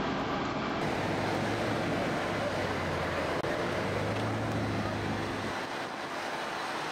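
Steady engine and machinery noise at a vehicle-extrication scene, with a low hum that stops about five and a half seconds in.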